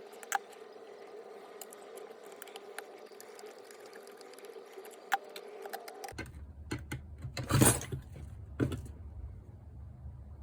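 Scattered light clicks and clinks of small metal parts and tools being handled while the saw is taken apart, over a steady hum. About six seconds in the background changes abruptly, and a brief loud rasp follows about a second and a half later.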